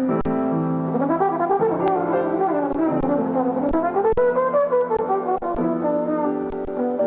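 Jazz trombone and piano duet playing a slow ballad. The trombone plays a phrase that winds up and down over held piano chords.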